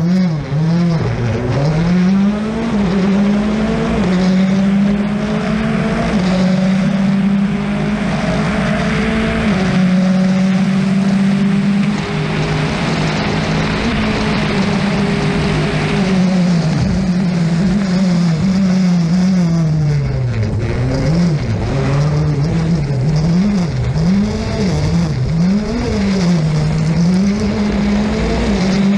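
Rally car engine heard from inside the car, running hard and rising and falling in pitch as it revs up and drops back. In the second half the revs swing quickly up and down several times in a row.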